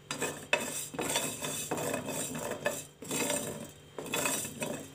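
Mustard seeds dry-roasting in a hot pan, stirred with a spoon: irregular scraping and clinking of the spoon against the pan, with scattered sharp clicks as the seeds begin to pop.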